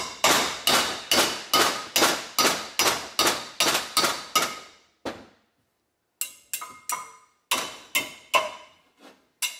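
Ball-peen hammer striking a chisel against a Toyota Land Cruiser 100 Series front brake rotor stuck to its hub, a quick run of ringing metal-on-metal blows about two or three a second. The blows pause briefly about halfway through, then resume, working the corroded rotor loose from the hub.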